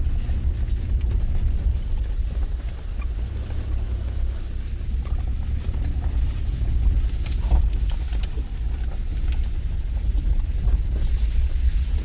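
Inside the cabin of a car driving slowly over a rough, stony dirt track: a steady low rumble of engine and tyres, with a few light knocks and rattles about seven seconds in.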